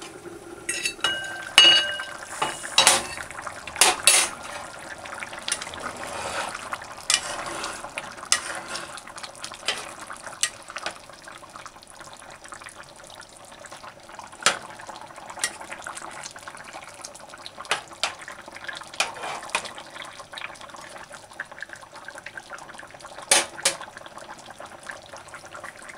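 Aluminium pot lid lifted off with metal clanks and a short ring in the first few seconds, then a metal slotted spatula stirring a thick curry stew, clinking and scraping against the pot over the sound of the simmering gravy.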